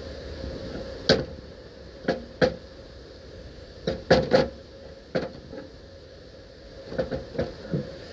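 Sharp metal clicks and knocks, about ten in small clusters, as hydraulic cylinder parts and hand tools are picked up and set down during a seal repack, over a steady low hum.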